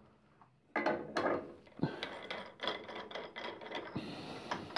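Metal clinking and scraping as the freed Morse taper 4 ER32 collet chuck is worked down out of the milling machine spindle by hand, with a few light knocks and a sharp click near the end.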